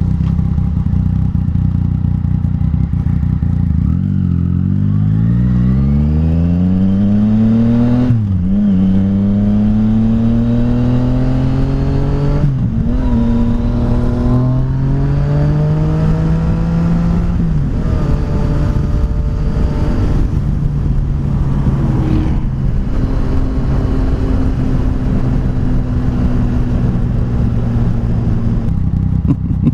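Yamaha FZ-09 motorcycle's inline-three engine accelerating hard through the gears: the pitch climbs and drops at three upshifts, about 8, 12 and 17 seconds in, then holds steady at cruise. Heavy wind rumble on the microphone throughout.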